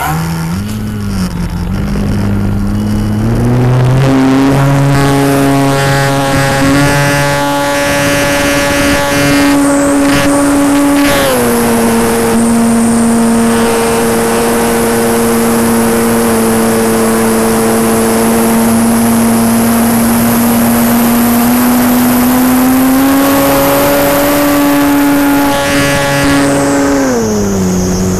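Electric motor and propeller of a Beast 60E radio-controlled aerobatic plane, heard close up from on board, with air rushing past. The whine climbs in pitch over the first few seconds as the throttle opens for takeoff, drops about eleven seconds in, climbs again later, and falls off just before the end.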